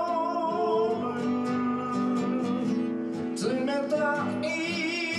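Acoustic guitar strummed and picked in an instrumental interlude between sung lines of a song.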